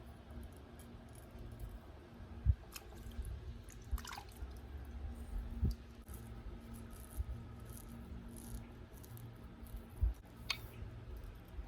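Axe being worked by hand on a jade whetstone: scattered low knocks and bumps, with two short scrapes about four seconds in and near the end.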